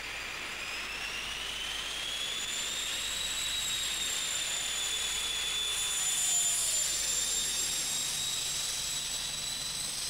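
British Rail InterCity 125 (HST) diesel power car going by, its engine giving a high turbocharger whine that rises in pitch and then holds, over the rush of the train. The sound grows loudest about six seconds in, as a lower note falls in pitch, and then cuts off suddenly.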